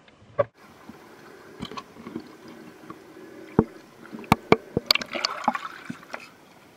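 Water sounds heard through an underwater camera: a sharp thump just after the start, then bubbling and many knocks and clicks that build into a dense, splashy cluster about five seconds in, as the camera is moved up toward the surface.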